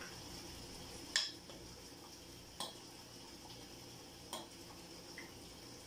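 A metal spoon stirring fruit salad in a glass mixing bowl, clinking against the bowl three times about a second and a half apart, the first clink the loudest.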